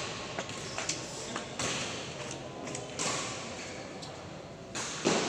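Badminton rally: sharp racket-on-shuttlecock hits echoing in a large hall, several light ones in the first second and a half and a louder one near the end.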